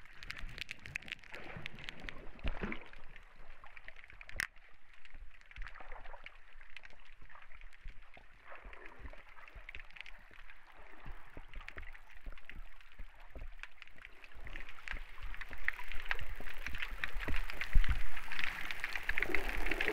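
Shallow water sloshing and splashing, a crackling hiss that grows louder over the last few seconds.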